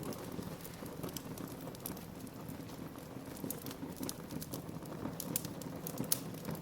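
Wood fire burning in a fireplace, with a steady low rush of the flames and frequent irregular crackles and pops.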